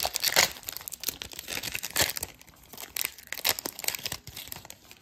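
Foil wrapper of a 2022 Panini Contenders football card pack being torn open and crinkled by hand: an uneven run of sharp crackles and rips, loudest just after the start and again about two seconds in.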